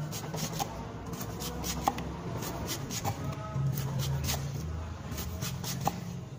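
Cleaver slicing through a pineapple and knocking on a thick wooden chopping block, a quick irregular series of knocks about two a second.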